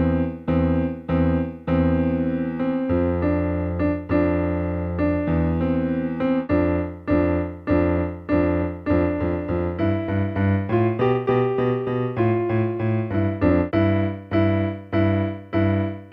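Electronic keyboard played with both hands by a beginner: a simple melody in separate struck notes over held low notes. About ten seconds in, the whole tune moves up in pitch, as when the piece is replayed in the next key.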